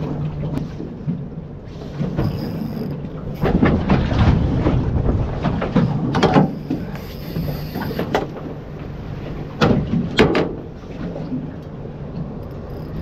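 A small boat's outboard motor running steadily, with wind buffeting the microphone and several louder rushes of water from waves breaking close by.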